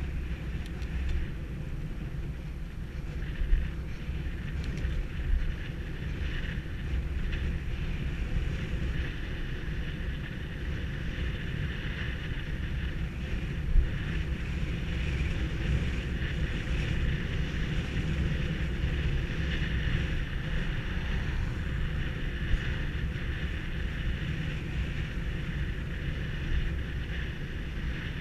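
Steady wind rush on the microphone of a camera mounted on a moving bicycle, mixed with the rumble of the tyres rolling over asphalt. A few sharp knocks stand out, the loudest about halfway through.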